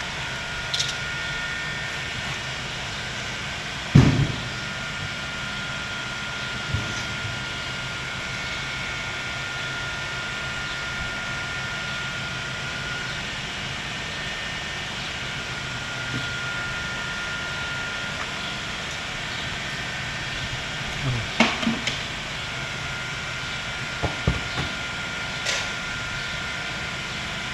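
Bicycle bottle holder being fitted to the frame: scattered clicks and knocks of the metal parts and tools over a steady background hum. The loudest knock comes about four seconds in, and a quick run of clicks follows later, about three quarters of the way through.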